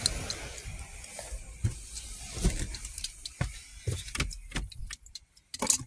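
Knocks, thumps and rustles of a handheld phone being bumped and moved about as a person climbs into a car seat, with a few sharp clicks near the end.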